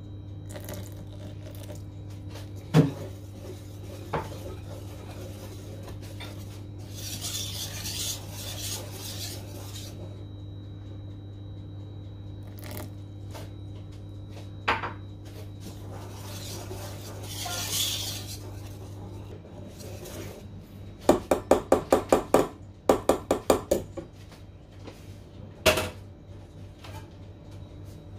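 Stainless steel wire whisk beating cake batter in a stainless steel bowl, the whisk clinking against the bowl in quick runs of sharp strikes, about five a second, in the last third, with a few single knocks earlier.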